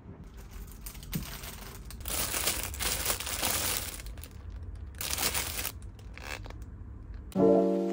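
Clear plastic wrap crinkling as it is handled and peeled off, in two main stretches. Piano music starts suddenly near the end.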